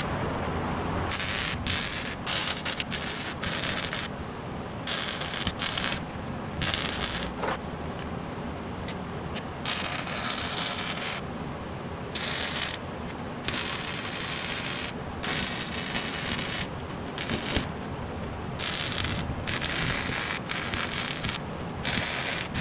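Electric arc welding on a steel truck frame: the arc crackles and sputters in a series of short runs, a second or two each, with brief pauses between them.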